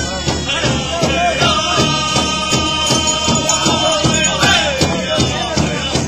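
Powwow drum group: a steady beat on the big drum under high-pitched group singing, with one long held note from about a second and a half in until about four and a half seconds in.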